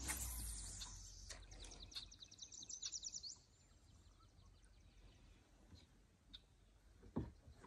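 A fishing rod cast with a brief swish at the start. It is followed by a rapid, high trill of ticks lasting about two seconds, then near quiet with one small click near the end.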